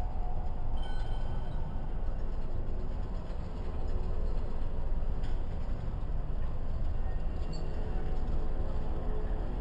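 Steady low rumble of busy street traffic, with cycle rickshaws and motor vehicles passing.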